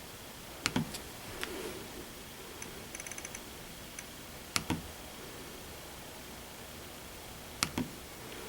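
Hand-handling clicks and taps: three sharp clicks, each with a dull knock, about a second in, near the middle and near the end, with a lighter click and a few runs of faint quick ticks between them.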